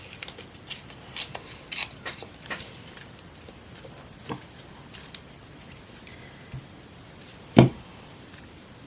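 Scissors snipping and magazine paper rustling as a feather shape is cut, with a quick run of crisp snips in the first few seconds and scattered ones after. A single sharp knock near the end is the loudest sound.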